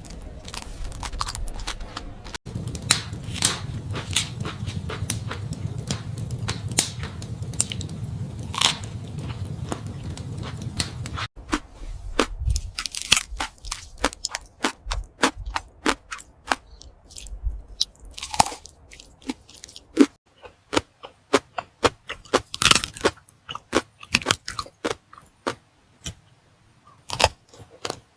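Close-miked eating sounds: a person biting and chewing food, with many quick crunches and wet mouth clicks. A low hum sits under the first part and cuts off about eleven seconds in, after which the crunches and clicks stand out on their own.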